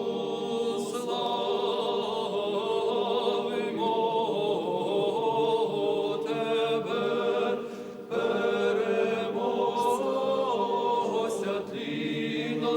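A choir chanting unaccompanied in long held notes, with a short break about eight seconds in.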